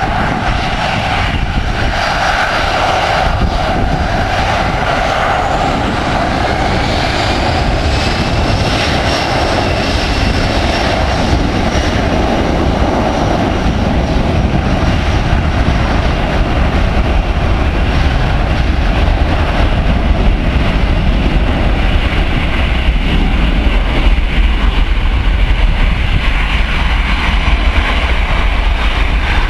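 Boeing 737-500's CFM56-3 turbofan engines spooling up for takeoff: a rising whine about a quarter of the way in, then a deepening rumble that grows louder as the takeoff thrust builds and the jet starts its takeoff roll.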